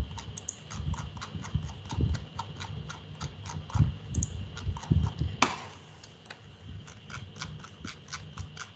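Rapid, regular clicking of a computer mouse scroll wheel as a page is scrolled, about four or five clicks a second, with one sharper, louder click about five and a half seconds in.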